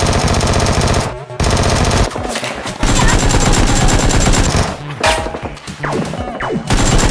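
Video-game automatic gunfire in rapid bursts, about three long bursts over the first five seconds, then scattered shots and other effects near the end.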